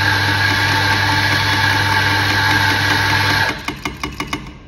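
On-demand espresso grinder motor running steadily as it grinds a timed double dose of coffee into a portafilter. It cuts off about three and a half seconds in, followed by a quick run of fading clicks.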